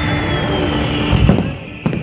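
Fireworks shells bursting, two sharp bangs in the second half, over music playing in the background.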